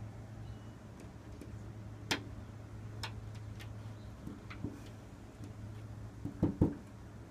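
A boxer puppy's teeth and paws clicking and knocking against a glass door as it bites at it: a few sharp separate clicks, then a louder cluster of knocks near the end, over a steady low hum.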